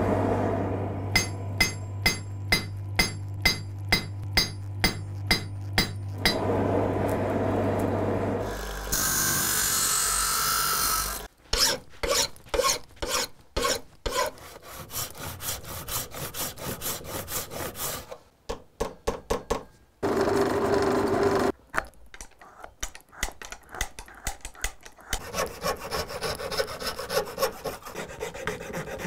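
A sequence of blacksmith's workshop sounds. First comes a run of evenly spaced hammer strikes on metal, about two a second, each ringing high. Stretches of steady rushing noise and quicker tapping and clicking follow, and near the end a file rasps over wood as a wooden tool handle is shaped.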